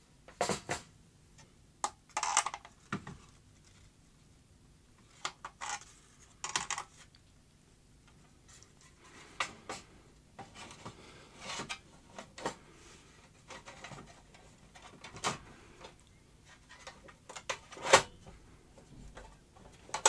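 Scattered metal clinks, knocks and rubbing as the sheet-metal case and aluminium frame of a Yihua 853A preheater are handled and fitted together; the loudest knock comes about eighteen seconds in.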